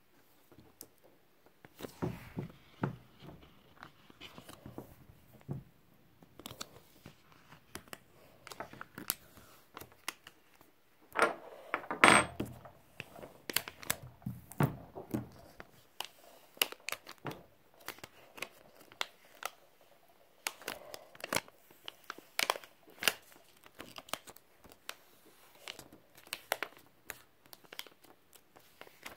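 Heat transfer vinyl being weeded: the sheet crinkles and crackles in many short bursts as it is lifted with a metal weeding hook and peeled off its clear plastic carrier. The loudest stretch comes about eleven to twelve seconds in.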